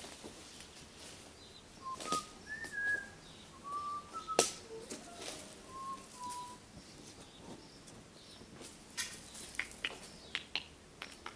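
Several short, soft whistled chirps, each a single clear note, some gliding slightly, amid scattered sharp clicks and rustles close to the microphone; the loudest click comes about four seconds in and a run of clicks falls near the end.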